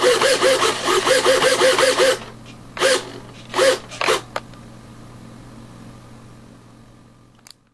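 The small servos of a foam RC plane's newly fitted ailerons buzzing as the ailerons are waggled quickly back and forth, about four strokes a second for two seconds. This is followed by three shorter single moves.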